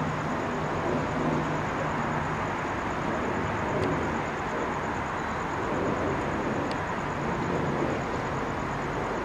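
Steady outdoor urban background hum, as of distant traffic, with a couple of faint clicks about four and seven seconds in.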